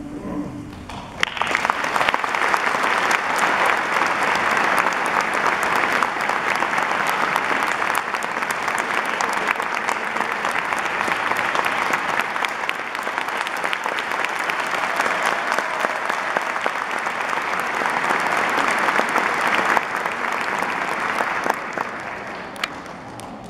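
Audience applauding. A choir's last note dies away at the start, clapping breaks out about a second in, holds steady, and fades out near the end.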